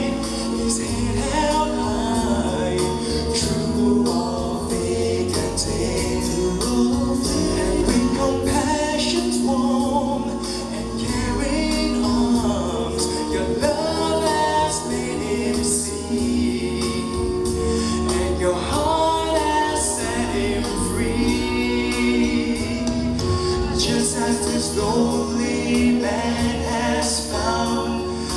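A live song sung by a man and a woman into microphones, with acoustic guitar accompaniment, amplified over a sound system.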